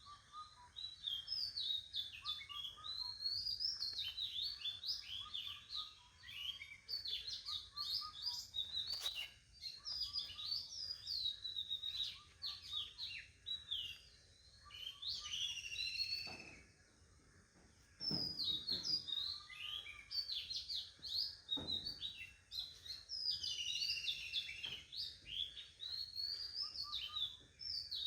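Songbirds chirping and twittering in quick, overlapping phrases, with a few short lulls, the longest about two-thirds of the way through. A few soft knocks are heard in the second half.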